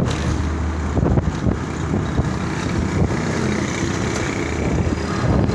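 Steady low engine hum and road noise from inside a moving vehicle driving across a bridge, with a few knocks about a second in.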